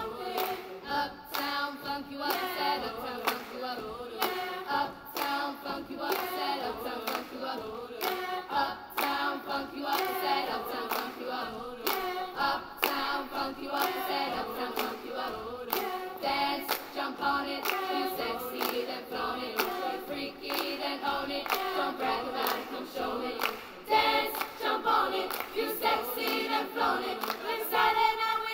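A children's choir singing a cappella in several parts, with hand claps keeping the beat.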